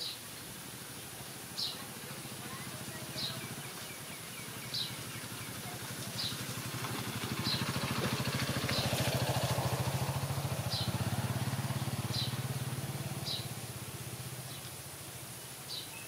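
A small vehicle engine passes by, rising to its loudest in the middle and fading away, while a bird repeats a short high chirp about every second and a half.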